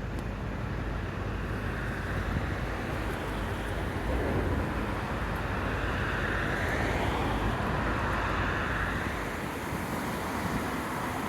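A train passing: a broad, steady rumble that swells in the middle and eases near the end, with wind on the microphone.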